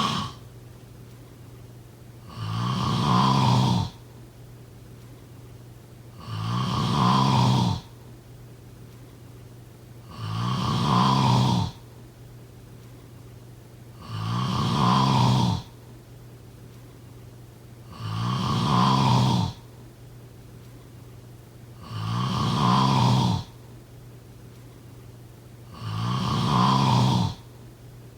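A person snoring in slow, regular breaths: seven snores about four seconds apart, each building over a second or so and then ending abruptly.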